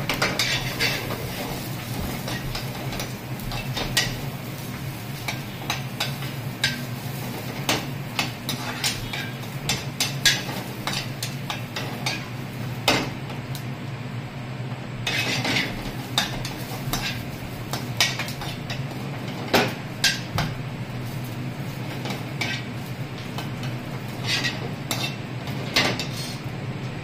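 Metal ladle scraping and clinking against a metal frying pan as sliced onions are stirred in hot oil on the way to golden brown, with a light sizzle. A steady low hum runs underneath.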